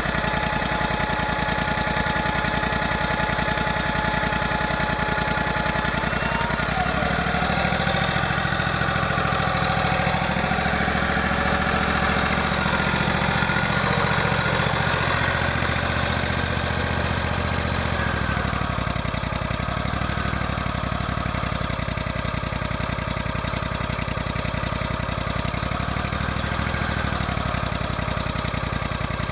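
An engine running steadily. A high whine over it drops in pitch about seven seconds in, and a wavering tone comes and goes in the second half.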